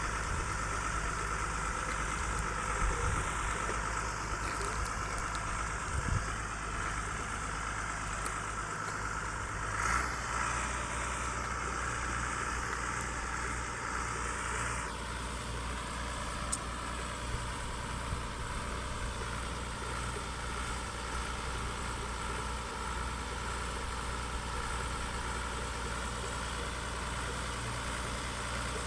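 Diamond drilling rig's engine running steadily as the rig moves down a hill, a low hum with a steady higher whine over it.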